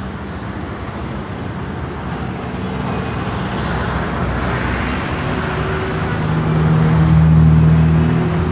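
Street traffic with car engines running close by. About six seconds in, one vehicle's engine hum comes up loud and steady, peaking near the end.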